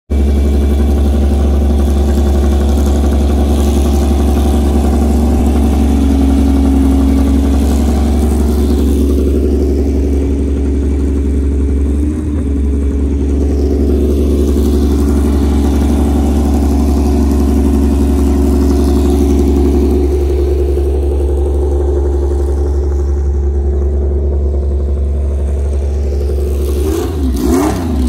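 Vintage race car engine running at a loud, steady idle with a strong low rumble. About a second before the end the throttle is blipped several times, the pitch swinging up and down with each blip.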